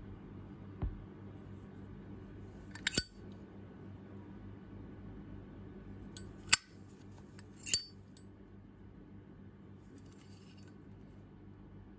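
Chrome-finished Zippo windproof lighter clicking: the hinged lid snaps open with the typical metallic Zippo clink about three seconds in. Two more sharp metallic clicks follow a few seconds later as the lid and case are handled.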